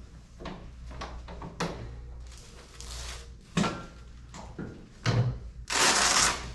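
Clunks and knocks from a chiropractic treatment table as it is worked and the patient shifts on it, the sharpest about three and a half and five seconds in. Near the end comes a louder rush of noise lasting under a second.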